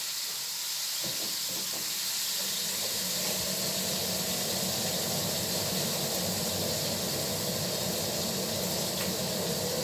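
Steak sizzling steadily in a hot frying pan just after being flipped. A low hum comes in about three seconds in.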